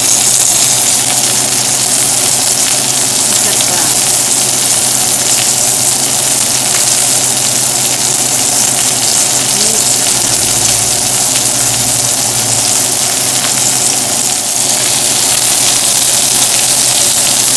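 Steak frying in a hot pan with butter and sliced garlic: a steady, loud sizzle that runs on evenly, over a low steady hum.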